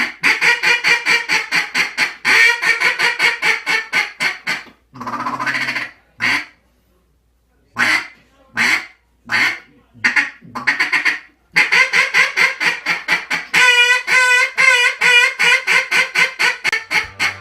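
Single-reed, hand-tuned acrylic duck call blown in a run of fast quacks. About six seconds in it breaks off, gives a few single spaced quacks, then goes into another long, fast run of quacks.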